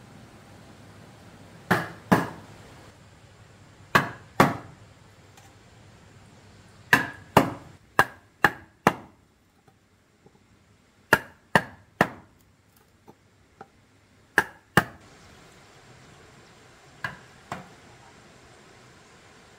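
Sharp wooden knocks from a block of wood striking a piece of wood, in pairs and short runs of three to five about half a second apart, then two fainter knocks near the end.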